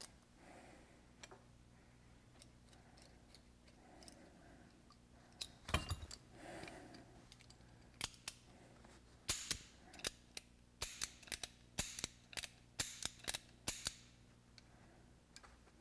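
Light metallic clicks and taps from a Ruger Blackhawk single-action revolver being reassembled by hand, its parts and action clicking as they are fitted. Faint at first, the clicks begin about five seconds in and come thick and fast from about eight seconds on.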